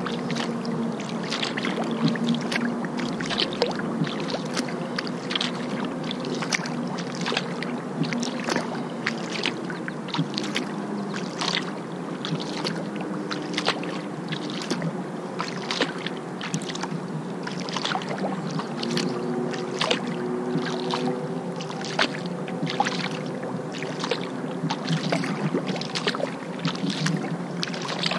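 Kayak paddle strokes: repeated splashes and drips of the paddle blades dipping into the river, over a steady wash of moving water, about one or two splashes a second.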